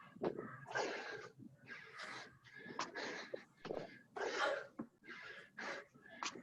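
Heavy, laboured breathing from hard exertion during burpees: short forceful exhalations and gasps coming about once or twice a second.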